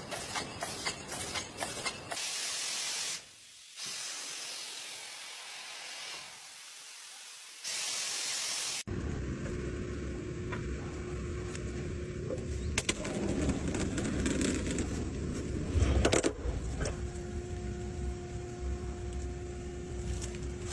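Industrial machinery in a series of separate clips. It starts with rapid clicking, then a spraying hiss lasting several seconds, then a steady mechanical din with a low rumble and a held hum.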